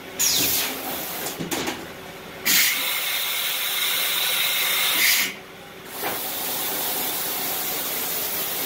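Coolant and air spraying inside a Doosan NHP 6300 horizontal machining center's enclosure, hissing in short bursts, then one loud hiss lasting about two and a half seconds, then a steadier hiss after a brief drop.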